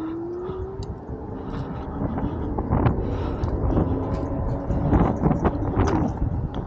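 Wind buffeting the microphone over road noise while riding an electric scooter, with a short rising motor whine right at the start and a few sharp knocks along the way.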